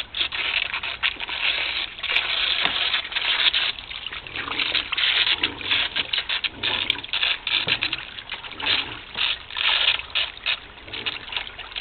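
Water splashing and sloshing in a shallow plastic kiddie pool as two Newfoundland puppies tussle and step about in it, in irregular bursts, over a garden hose running into the pool.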